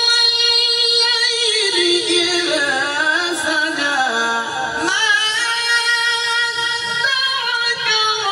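A male qari's melodic Quran recitation (tilawat) in a high voice. He holds a long note, slides down through ornamented, wavering turns from about a second in, and climbs again around five seconds in, all in one unbroken breath.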